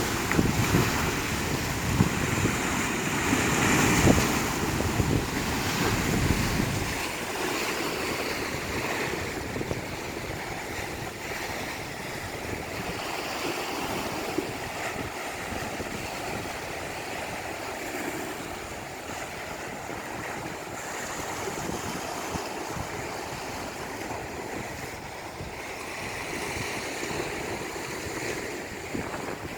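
Sea waves breaking and washing onto a beach. Wind buffets the microphone for the first several seconds, then it drops to a softer, steady wash of surf.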